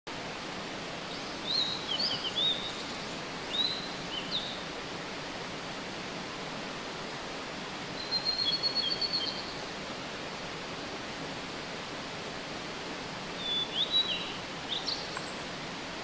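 Blue-and-white flycatcher singing clear phrases several seconds apart, one of them a fast trill in the middle, over the steady rush of a mountain stream.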